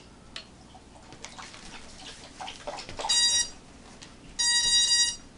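Quadcopter's Emax 4-in-1 ESC sounding power-up beeps through the brushless motors as the LiPo battery is connected: a short beep about three seconds in, then a longer one, with the props wiggling. Faint clicks before the beeps.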